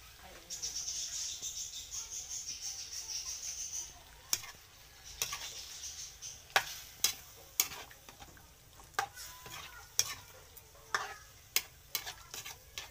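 Chicken in tomato sauce sizzling in a metal pan, a steady high hiss for the first few seconds. Then a spatula stirs the pieces, scraping and knocking against the pan in sharp, irregular clacks.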